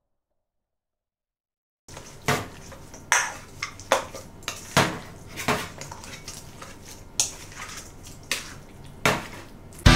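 Pomelo salad being tossed by hand in a stainless steel mixing bowl: sharp clinks against the bowl about once a second, with softer rustling of the food between. It starts about two seconds in.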